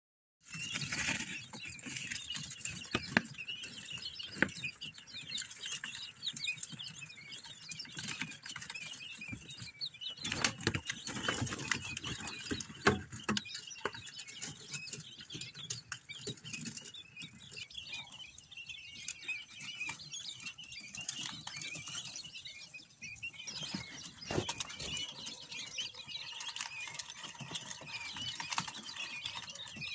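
A brood of quail chicks peeping, many short high cheeps overlapping without a break, with occasional sharp taps and knocks.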